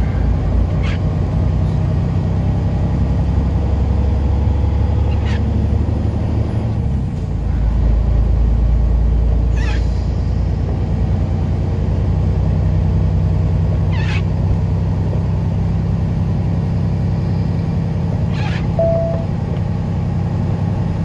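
Semi truck's diesel engine running with a steady low drone heard from inside the cab, its note dropping lower about seven seconds in. A short swish comes roughly every four and a half seconds, and there is a brief beep near the end.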